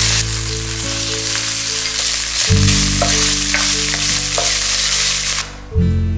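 Oil sizzling hard in a nonstick pan as chili bean paste and then minced meat are stir-fried with a wooden spatula, with a few light scrapes of the spatula. The sizzling cuts off suddenly about five seconds in.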